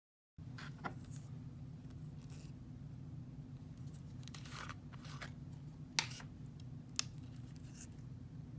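Hands squishing and pressing clear orange floam slime, the foam beads crackling softly with a few sharp pops, the loudest about six seconds in. A steady low hum runs underneath.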